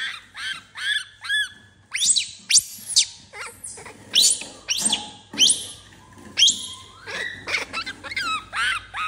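Baby macaque giving a run of short, high-pitched calls, each rising and then falling in pitch, a little under two a second.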